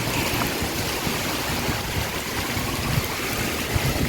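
Heavy rain pouring down in a steady hiss, with wind gusts rumbling against the microphone.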